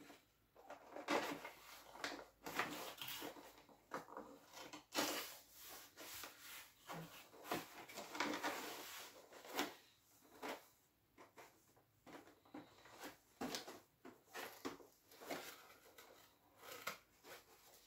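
Cardboard box and plastic packaging being handled and pulled apart while a toy is unpacked: irregular rustling, scraping and light knocks.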